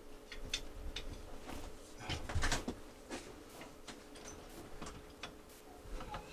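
Irregular light clicks and knocks of tools and small plumbing parts being handled, over a faint steady hum.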